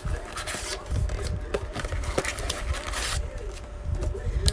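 Rustling, scraping and tearing of plastic wrap and cardboard packaging as a trading card blaster box is opened, with a few sharp clicks of handling.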